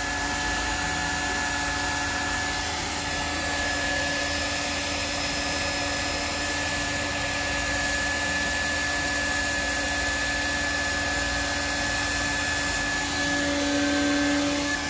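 Hot-air plastic welding gun running steadily, a blower hiss with a faint steady whine, while polypropylene (PP) welding rod is hand-fed into a tank seam. It grows a little louder near the end.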